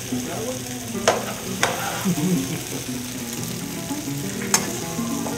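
Peppers and onions sizzling steadily in a frying pan over a gas burner. Metal tongs clack against the pan three times, about a second in, again half a second later, and near the end.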